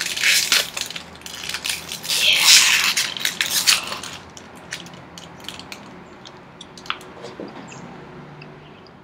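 A small wrapped piece of food being unwrapped by hand, its wrapper crinkling and crackling, loud for the first four seconds. After that come fainter, scattered rustles and clicks.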